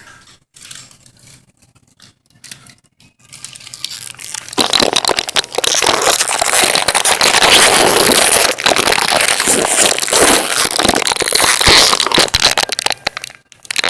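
Loud, dense crackling and rustling that starts suddenly about four and a half seconds in, after a few faint clicks, and stops shortly before the end.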